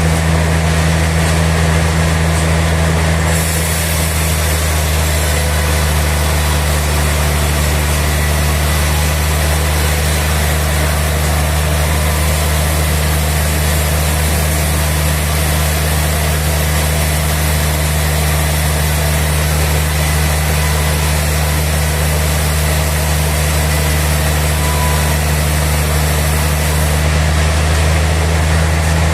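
Sawmill machinery running steadily: a low, constant engine-like hum under a broad hiss, which turns a little brighter about three seconds in and drops back shortly before the end.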